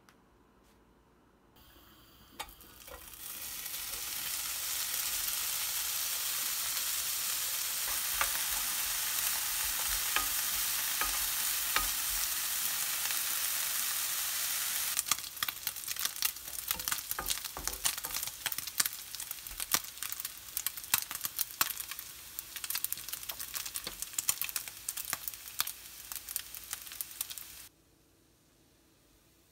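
Bacon pieces frying in a nonstick pan. A hiss of sizzling builds up and holds steady, then turns into a busier crackle with many sharp pops as the fat renders, and cuts off suddenly near the end.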